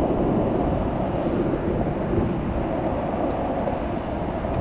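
Skateboard rolling on pavement, a steady coarse rumble from its shredded wheels.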